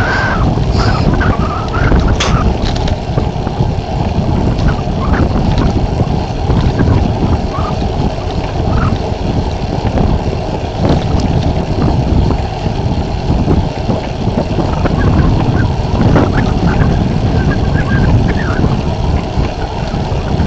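Strong blizzard wind buffeting the microphone: a loud, gusting rumble that swells and eases without a break.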